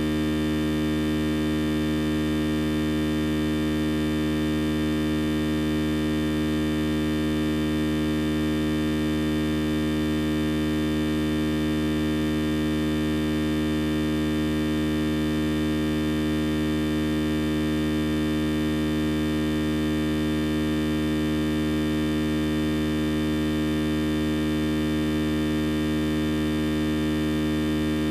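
A steady electrical hum or buzz with many overtones, unchanging in pitch and loudness, with no speech over it. It sounds like an audio feed fault such as a ground-loop hum.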